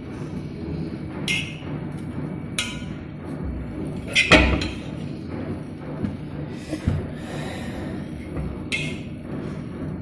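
Stainless steel plates clinking and knocking as food is served onto them, a few separate sharp clinks with one louder clatter and thud about four seconds in.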